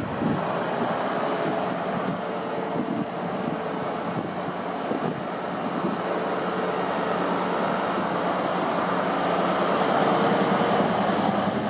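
HST Class 43 diesel power car running as the InterCity 125 rolls slowly into the platform, a steady engine drone with a faint hum that gradually grows louder as it approaches. A thin high squeal sounds for a few seconds around the middle.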